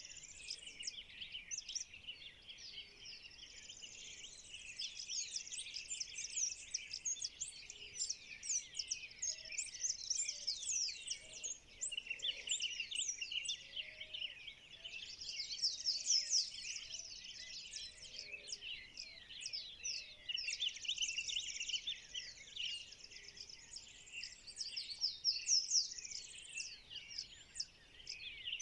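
Dawn chorus: many birds chirping and singing at once in a dense, continuous tangle of quick, high calls that swells and eases in waves, with a few fainter, lower calls underneath.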